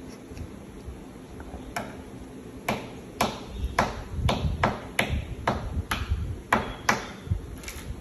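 African grey parrot tapping its beak on a wooden desk: about a dozen sharp, slightly ringing taps, starting about two seconds in and coming roughly two a second.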